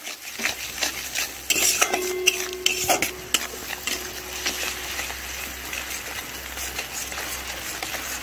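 A spatula stirs and scrapes mustard paste frying in oil in an aluminium kadai, with repeated scraping strokes against the pan over a light sizzle.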